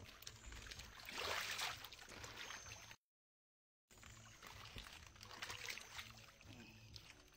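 Water sloshing and splashing in a shallow tarpaulin-lined pit pool as a person shifts about in it. The sound cuts out completely for about a second near the middle.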